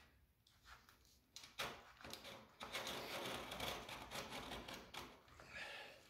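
Aluminium sill plate of a retractable screen door being wiggled back and forth and pushed into the frame: a few light clicks, then a longer stretch of scraping and rubbing through the middle.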